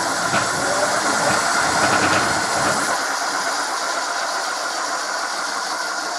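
Crystalyte brushless hub motor spinning the rear wheel of an electric motorbike in the air: a steady whine over a loud rushing noise from the spinning wheel. Low rumble in the first few seconds fades out. It is a bench test after the motor's Hall sensors were replaced, and the motor is running.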